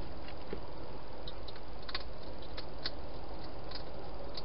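Hedgehog eating at a bowl in a plastic feeding station: faint, irregular crunching clicks, about ten in four seconds, over a steady hiss.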